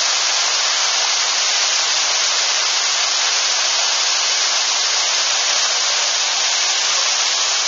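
Pagsanjan Falls pouring into its pool close by: a steady, loud rush of falling water.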